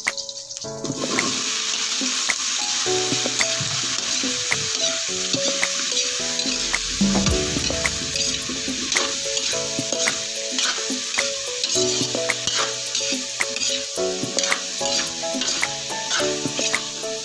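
Squash chunks and string beans sizzling in hot oil in an aluminium wok while being stirred and tossed. The frying hiss starts about a second in, and the stirring utensil ticks and scrapes against the pan throughout.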